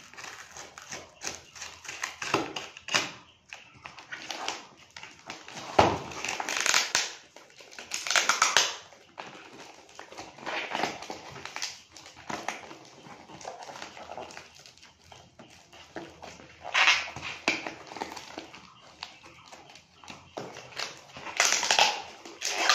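Packing tape and cardboard of a parcel being cut and torn open by hand: irregular scraping and ripping, with louder rips about six, eight, seventeen and twenty-two seconds in.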